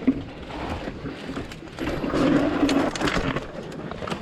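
Mountain bike rattling and crunching over rough, rocky ground, with scattered clicks from the chain and frame; louder for a second or so in the middle.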